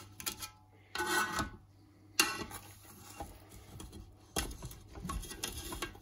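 Hot cookware being worked out of a Ninja Foodi: a scrape about a second in, then a sharp metallic knock and several more clatters and bumps.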